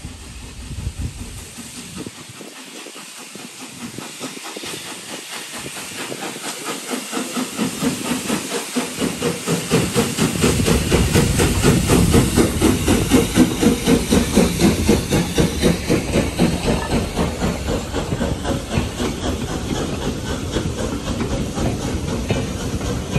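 Austerity 0-6-0 saddle tank steam locomotive working a train, its steam hissing and its exhaust beats growing louder as it draws near and passes, loudest about halfway through. The rhythmic chuffing then eases a little as the coaches roll by.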